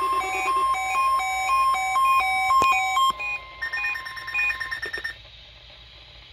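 Weather alert radio receiver sounding its electronic alarm, set off by the weekly NOAA Weather Radio test alert: a rapid beeping that alternates between two pitches, with a harsher, fast-pulsing buzz joining about three and a half seconds in. There is a click near the middle, and the alarm cuts off about five seconds in, leaving faint hiss.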